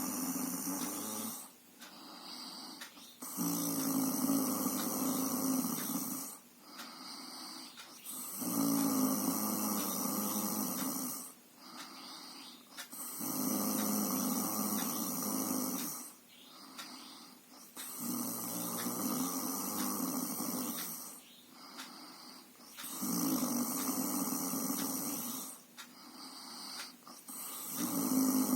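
Steady rhythmic snoring during sleep. A long snore of two to three seconds comes about every five seconds, with a quieter breath between each.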